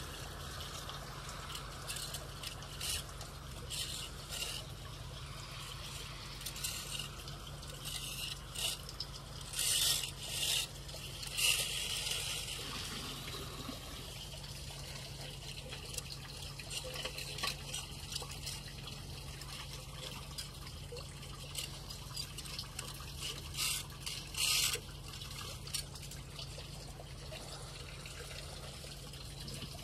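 Flood water from the street trickling and pouring into a cleared storm drain, with short louder splashing rushes now and then.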